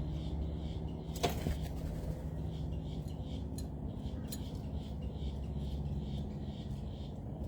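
Steady low background rumble with one sharp click about a second in, followed by a few fainter ticks.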